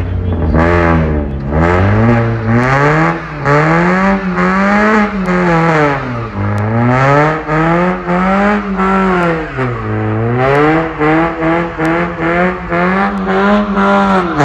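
A car engine revved hard, over and over: the revs climb, hang high, dip briefly about six and ten seconds in, and climb again, while the car does a stationary burnout with its tyres spinning.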